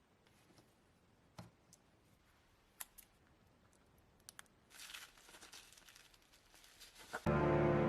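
A few faint, sharp clicks of small objects being handled, and a brief rustle, then music starts near the end.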